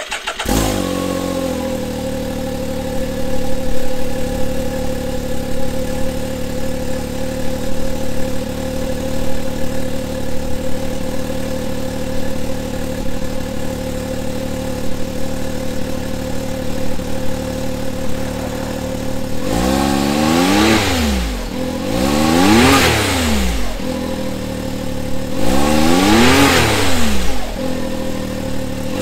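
Can-Am X3 MAX's turbocharged three-cylinder engine idling steadily through its EVO Shocker electric cutout exhaust with the cutout closed, giving the stock sound. In the last ten seconds it is revved three times, each rev rising and falling back to idle a few seconds apart.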